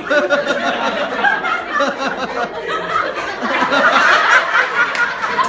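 A crowd of voices chattering and laughing, several people at once with no single speaker standing out; it gets busier about four seconds in.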